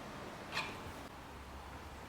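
A single short squeak about half a second in, typical of the restored hand wringer's mechanism being worked, with a faint steady low hum afterwards.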